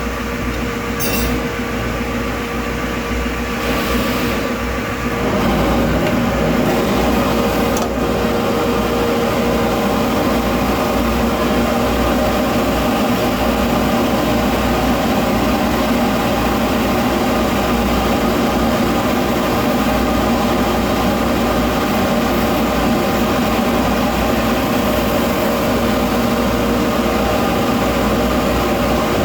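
Electric polishing motor running steadily with a constant hum, louder and fuller from about five seconds in, as when work is pressed against the buffing wheel.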